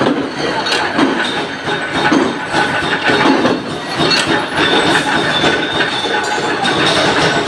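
Industrial machinery running steadily, with irregular metallic clinks and knocks.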